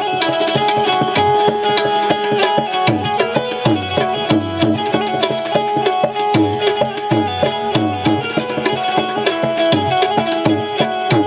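Tabla played in a quick, steady rhythm, the bass drum's strokes bending in pitch, over sustained melody notes from an accompanying instrument.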